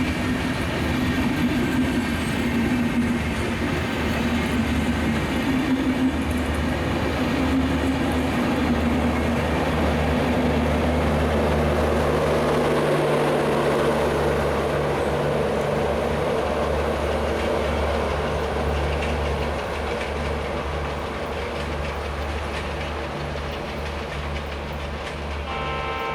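Passenger train running past on the line: a steady rumble of wheels and carriages on the rails with a low hum underneath. It is loudest midway and eases off somewhat near the end.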